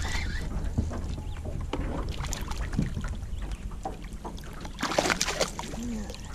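Sounds aboard a small fishing boat: a steady low hum under light knocks and rustles, with a brief louder rush of noise about five seconds in.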